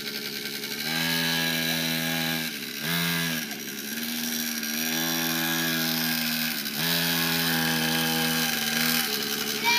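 Small single-cylinder engine of a child's mini dirt bike running under way, holding a steady buzzing note that drops and comes back about four times as the throttle is eased off and reopened.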